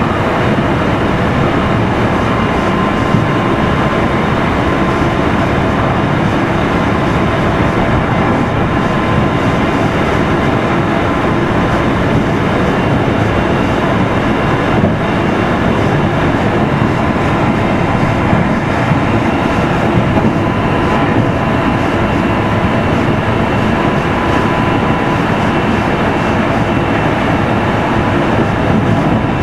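Running noise of a Meitetsu 3100 series electric train, heard in motor car Mo 3212 while it runs along the line: a steady, loud rumble of wheels on rail with a thin, steady whine that comes and goes.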